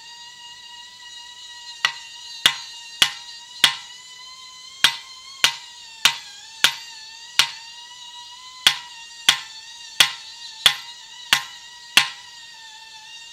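Hand hammer striking steel feathers and wedges driven into holes drilled in a marble block, to split off a corner of the block: about fifteen sharp blows, roughly one every half second with a short break near the middle, starting about two seconds in. A steady high-pitched tone runs in the background.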